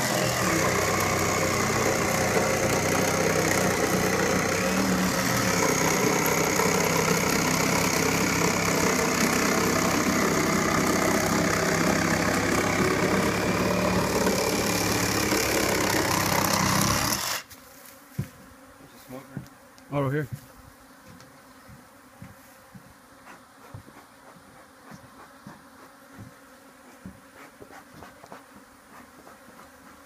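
Cordless reciprocating saw cutting through a plywood deck, running steadily and stopping abruptly about seventeen seconds in. After that only faint sound remains, with one short sound a few seconds later.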